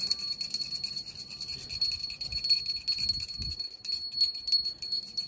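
Brass puja hand bell rung without pause, a bright continuous ringing with rapid strokes.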